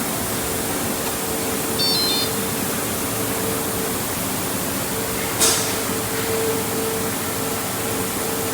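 Factory machine running with a steady hum and a faint held tone. A few short high beeps come about two seconds in, and a sharp click about five and a half seconds in.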